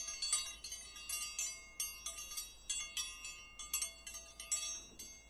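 Wind chimes tinkling: many light, high metallic strikes at an uneven pace, several a second, each left ringing.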